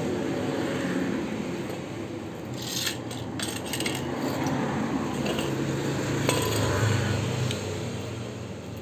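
A few light metallic clicks and clinks, from a small valve fitting and a brass-headed butane torch being handled, over a steady low hum.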